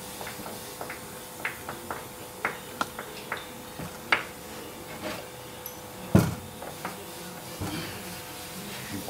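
Hand screwdriver driving a wood screw into a small wooden block through a pre-drilled pilot hole: a run of short, irregular creaks and clicks as the screw turns, with one louder knock a little after six seconds in.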